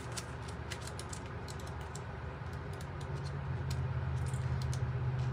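Quick, irregular light clicks and taps, like typing or tapping, over a low steady hum that gets louder a little past the middle.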